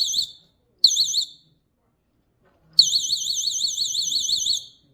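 GE Personal Security window/door alarm sounding its alarm mode as its magnet piece slides away from the sensor: a loud, shrill electronic siren warbling rapidly up and down. It sounds in three bursts, stopping just after the start, sounding briefly about a second in, and then again for about two seconds near the end.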